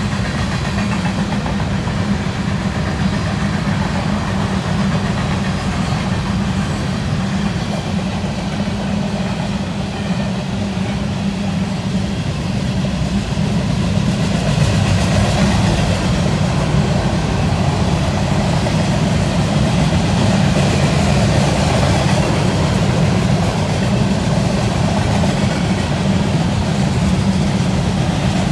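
Covered hopper cars of a grain train rolling past on the mainline: a steady rumble of steel wheels on rail, a little louder from about halfway through.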